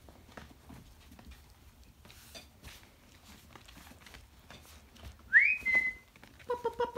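Faint clicks of puppy claws on a wooden floor. About five seconds in comes a loud, short whistle-like note that rises and then holds, and near the end a quick stuttering run of lower notes.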